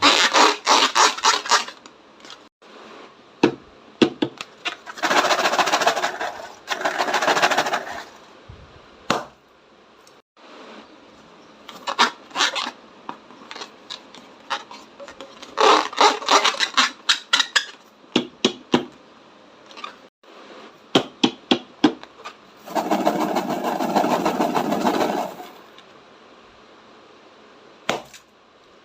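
Slime being squeezed and worked by hand: bursts of rapid crackling clicks and longer squelching stretches, with short pauses between.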